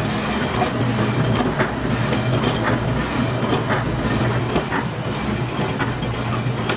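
A food-processing machine running with a steady motor hum and a regular click about once a second.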